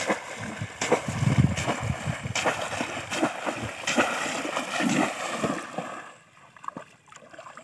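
Repeated loud splashing and sloshing of shallow water as a person wades through it and plunges a bamboo cone-shaped fish trap (polo) down into it. The splashing dies down about six seconds in.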